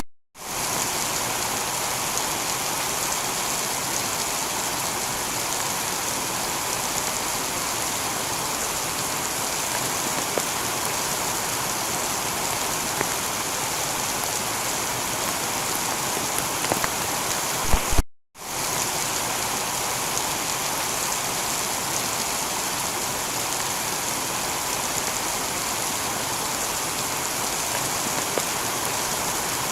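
Heavy rain falling steadily on a tiled roof, with scattered individual drops. The sound drops out for a moment twice, just after the start and about two-thirds of the way through.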